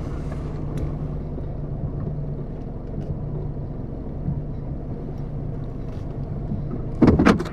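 Car running at low speed while pulling into a parking space, heard from inside the cabin: a steady low engine and road hum. A short burst of voice comes near the end.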